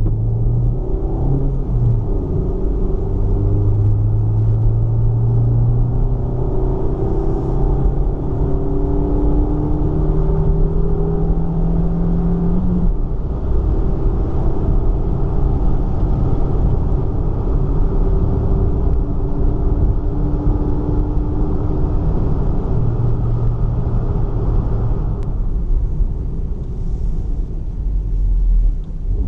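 Suzuki Baleno's K14B 1.4-litre DOHC 16-valve four-cylinder engine running while driving, its induction sound heard over road rumble. The engine note holds steady for stretches and changes pitch a few times, with a sudden change about 13 seconds in.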